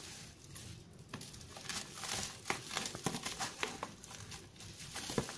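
Black plastic bubble-wrap packaging crinkling as it is handled and cut open with scissors, with irregular sharp clicks and snips.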